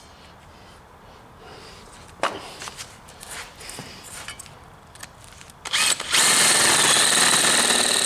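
A few light knocks and clicks of handling, then about six seconds in a power drill starts and runs steadily with a high whine, drilling out a hole in a spring-steel chain guard plate.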